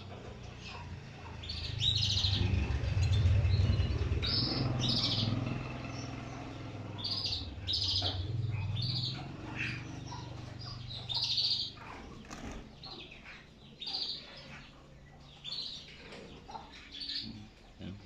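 Domestic canaries in a wire cage giving short, high chirps every second or two, with a low fluttering rumble of wings that is loudest over the first few seconds and fades away.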